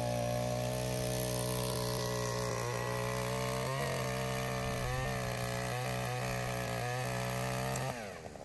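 Takyo TK3P earth auger's 82cc single-cylinder, air-cooled two-stroke engine running at high, steady speed as the auger bores into soil. The note wavers briefly a few times as the bit is loaded, then falls away near the end as the throttle comes off.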